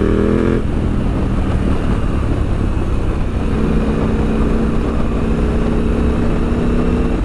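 KTM 890 SMT parallel-twin engine through a Vandemon titanium exhaust while riding. It revs with rising pitch for about half a second, then heavy wind rumble on the microphone covers it, and a steady engine note comes back about halfway through.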